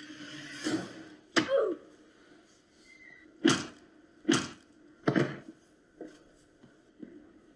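Short film's soundtrack played through a TV in a meeting room: a string of heavy thumps about a second apart, five loud ones with a short falling sound after the second, then two fainter knocks near the end.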